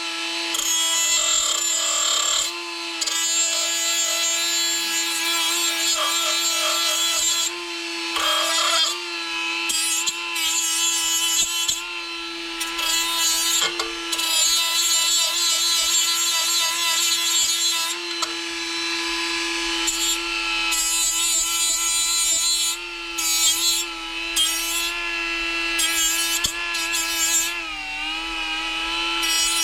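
Electric grinder running continuously on the car's sheet-metal trunk panel, grinding off rust: a steady motor whine under a rasping grind that swells and eases as the disc is pressed on and lifted. The motor's pitch dips briefly under load near the end.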